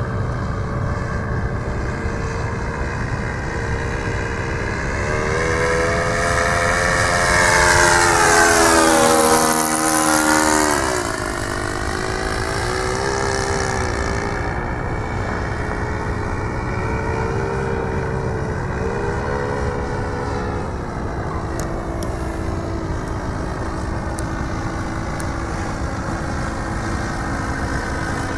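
A Cub aeroplane's propeller engine drones overhead. About eight to ten seconds in it passes closest: it grows loudest and its pitch falls sharply as it goes by. After that it drones steadily at a lower pitch as it flies on.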